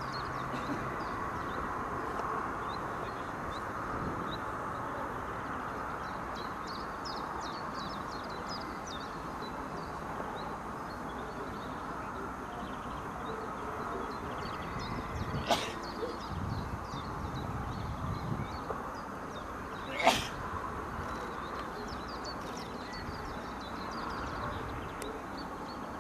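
Birds chirping over a steady outdoor hum, broken by two sharp bangs about four and a half seconds apart, the second the louder.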